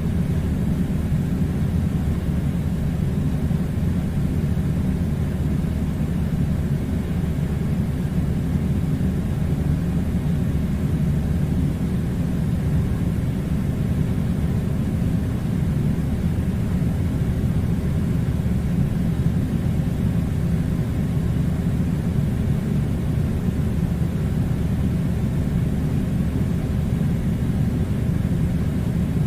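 Air conditioner running: a steady deep rumble of blowing air that never changes.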